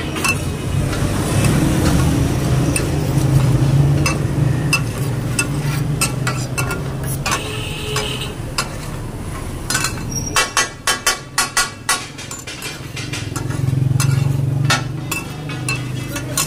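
Cleaver and flat spatula scraping and clanging on a large steel griddle over sizzling chopped meat, with a quick run of about eight sharp metal clacks about ten seconds in. A low hum swells and fades twice.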